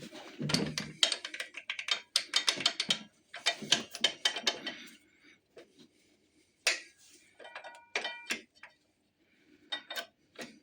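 Hand tools and metal brake parts clinking and rattling during work on a motorcycle's rear brake caliper. There is a quick run of clicks and knocks in the first few seconds, and a short metallic ring about eight seconds in.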